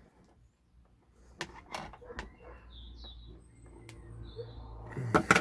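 Knife cutting the insulation on a solar PV cable, with the cable being handled: a few light clicks and knocks after a quiet start, then a louder cluster of clicks near the end.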